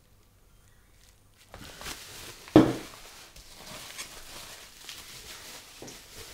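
Bubble wrap and plastic packaging rustling and crinkling as hands dig through a box of wrapped drink bottles and cans, starting about a second and a half in. One loud knock about two and a half seconds in, of something hard bumping the box.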